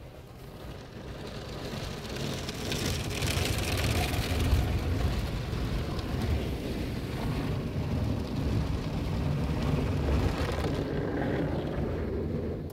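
A PDQ ProTouch soft-touch car wash's spinning foam brushes and water spray drum and swish against the car's body and windows, heard from inside the cabin. The noise builds over the first couple of seconds, holds steady, then drops away at the very end.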